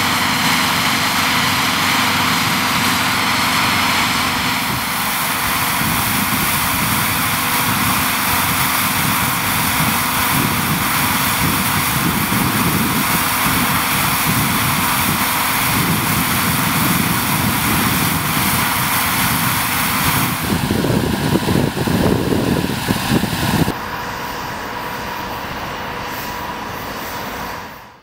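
Strong snowstorm wind blowing steadily, buffeting the microphone with a rumbling low end. The gusts hit hardest about twenty seconds in, then the wind drops to a quieter, duller rush for the last few seconds.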